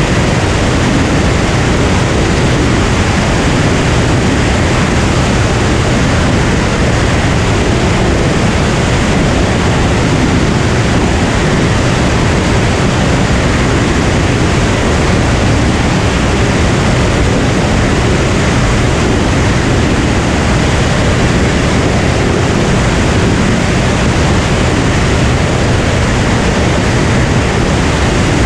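Cirrus SR22 single-engine propeller plane in cruise flight: a loud, steady rush of airflow over a low engine and propeller drone, unchanging throughout.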